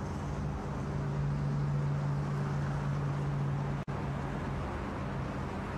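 A steady low mechanical hum over a rushing noise, broken by a brief dropout about four seconds in.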